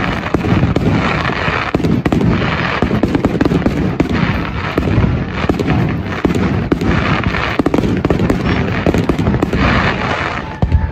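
Fireworks display going off in quick succession: a dense run of bangs, with a spell of crackling every second or two.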